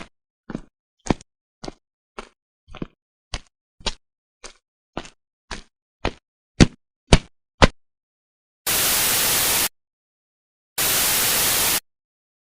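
A run of about thirteen short, sharp pops, roughly two a second, with the last few the loudest. Then, about two thirds of the way in, even one-second bursts of white-noise static that start and stop abruptly, separated by dead silence.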